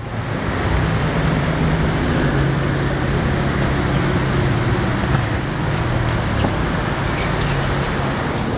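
City road traffic: a steady wash of traffic noise with a low engine drone under it, fading in from silence at the start.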